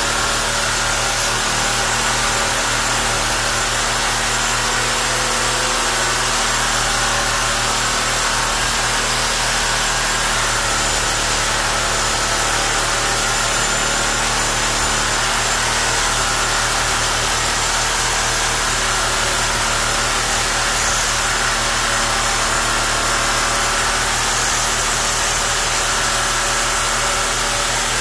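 Corded power tool cutting through an old cast iron drain stack, running steadily without a break.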